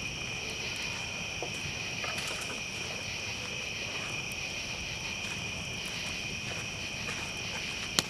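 Steady high chorus of night insects, with a campfire crackling softly underneath and one sharp pop near the end.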